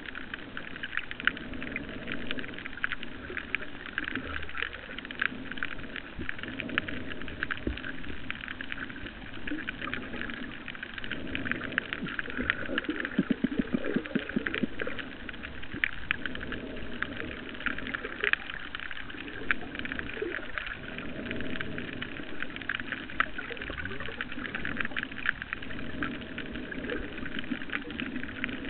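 Underwater reef ambience: a dense, steady crackle of snapping shrimp, with a lower rushing sound that swells and fades every few seconds.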